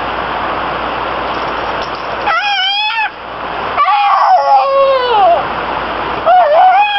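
A baby squeals three times in high-pitched, drawn-out calls that glide up and down, the first about two seconds in. A steady hiss comes before the first squeal.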